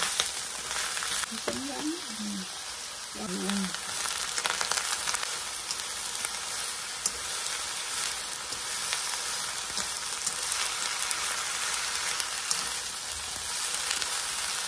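Vegetables sizzling as they are stir-fried in oil in a nonstick wok: scallions, shredded carrot, enoki mushrooms and bean sprouts. Chopsticks toss them and click now and then against the pan.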